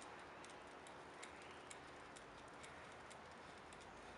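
Near silence: low background hiss with faint, light ticks coming irregularly about twice a second.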